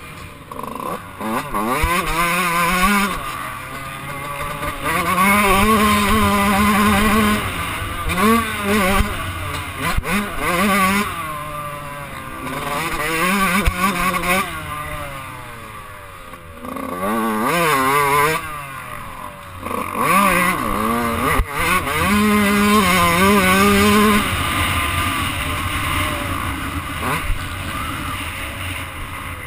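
Dirt bike engine heard from on board, revving hard with its pitch climbing and dropping again and again as the throttle is opened and rolled off through the gears.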